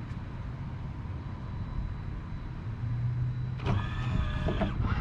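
Electric whine of a Minn Kota Riptide trolling motor's powered stow-and-deploy mechanism, starting abruptly about three and a half seconds in as it begins lowering the motor from its stowed position. The whine holds a few steady pitches.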